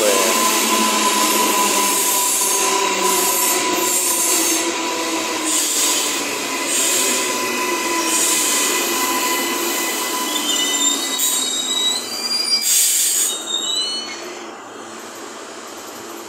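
Queensland Rail NGR electric multiple unit slowing into the platform, its whine falling in pitch as it decelerates. Thin high whistling tones step upward as it nears a stop, a brief loud rush of noise follows, and then the stopped train settles to a quieter steady hum.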